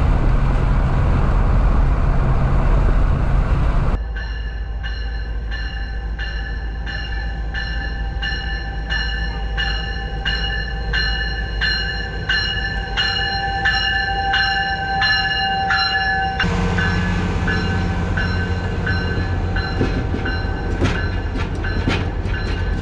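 Train noise: a steady low rumble, then a railway bell ringing about twice a second over the train for about twelve seconds. Near the end the rumble grows louder again with faster clicking.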